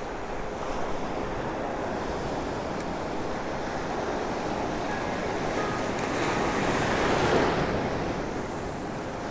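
Ocean surf breaking and washing through the shallows, with wind on the microphone; the wash swells louder about seven seconds in as a wave rolls through.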